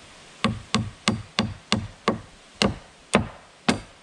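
Hammer driving nails by hand into 2x4 wall-framing lumber: nine sharp blows at an uneven pace of two to three a second.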